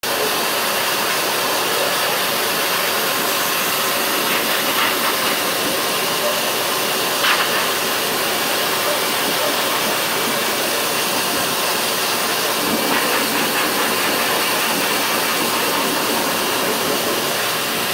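High-velocity pet grooming dryer blowing a steady rush of air through its hose nozzle into a dog's thick coat.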